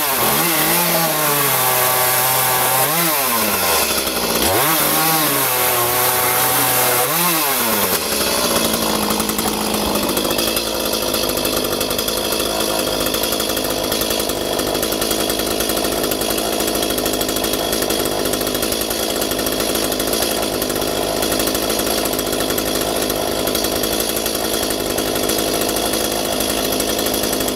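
Echo CS-310 chainsaw's two-stroke engine revving up and down three times, then dropping to a steady idle about eight seconds in.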